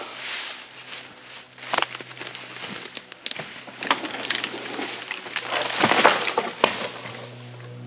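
Dry brush and reeds rustling and crunching underfoot and by hand, with several sharp snaps of dead branches breaking.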